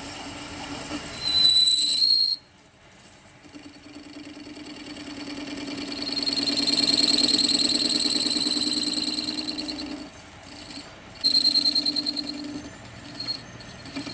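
Lathe cutting tool squealing against an iron bar, in several bouts: a short one about a second in, a long swelling one in the middle and another near the end. Each has a fluttering high whine over a lower hum.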